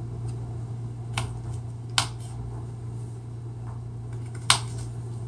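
A kitchen knife cutting through raw carrot and striking a plastic cutting board: sharp clicks about a second in, at two seconds and near the end, with a few fainter taps between.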